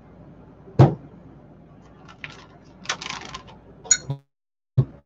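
Handling sounds at a table: a sharp knock about a second in as a bottle is set down, then a plastic zip-top bag crinkling as it is pulled open around three seconds. A click, a brief drop to dead silence and another knock follow near the end.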